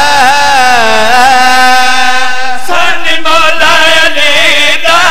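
Men singing a Punjabi devotional verse in long, ornamented held notes into a microphone. One voice holds a long note that slowly sinks. About two and a half seconds in, a second, higher voice takes up the line with a wavering melody.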